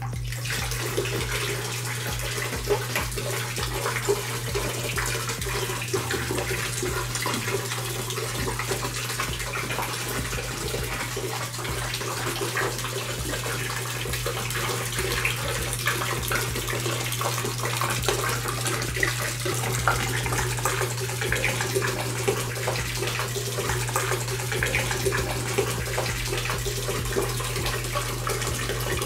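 Water splashing steadily as it falls onto a spinning spoon-cup water wheel and down into a plastic basin of water, starting suddenly, with a steady low hum underneath.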